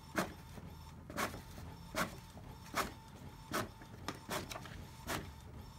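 Epson GP-C831 inkjet label printer printing a label: a short, sharp clack about every three-quarters of a second over a steady low mechanical hum.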